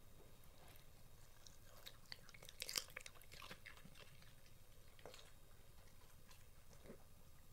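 West Highland terrier crunching and chewing a slice of cucumber: a quiet cluster of crisp crunches about two to three and a half seconds in, then a few faint clicks of chewing.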